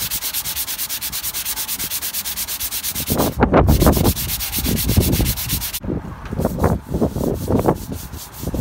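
Hand sanding a car body panel with a sanding block and 220-grit sandpaper. Fast, even back-and-forth scrubbing strokes give way, about halfway through, to slower, heavier, irregular strokes.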